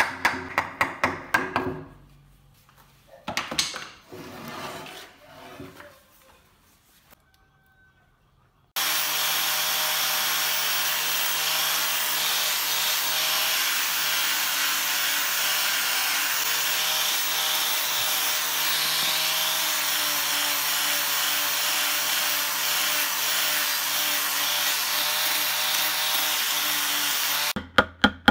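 A wooden mallet taps a chisel into a wood block, about five quick blows a second. After a short lull, an electric angle grinder with a sanding disc starts and runs steadily against the wood for about nineteen seconds, then stops abruptly, and quick chisel taps start again near the end.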